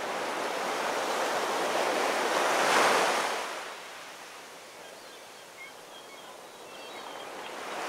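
Ocean surf washing in. A swell of wave noise peaks about three seconds in and falls away, then builds again near the end.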